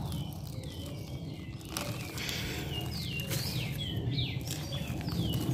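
A bird calling repeatedly: short high chirps that each slide down in pitch, coming thicker from about two seconds in.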